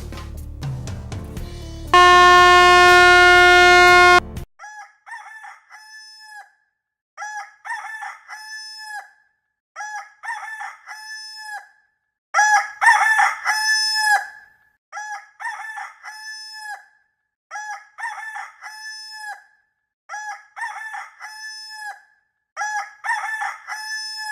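Rooster crowing over and over at even intervals, about eight times, each crow rising, holding and dropping off. Before the crowing begins, a loud steady buzzing tone sounds for about two seconds and cuts off suddenly.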